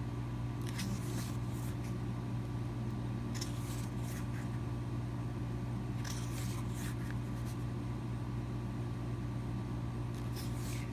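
Paper rustling four times, about every three seconds, as the pages of a CD album's photo booklet are handled and turned, over a steady low hum.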